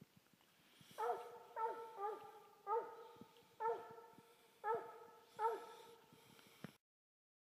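A Walker–English cross coonhound barking treed: about seven short, evenly paced chop barks, each dropping a little in pitch. This is the hound's tree bark, which tells the hunter the quarry is up the tree.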